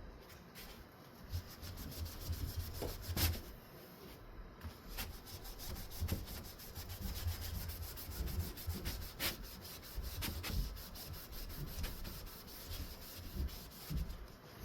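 A ceiling fan blade being scrubbed by hand with a cleaning wipe, a quick run of back-and-forth rubbing strokes.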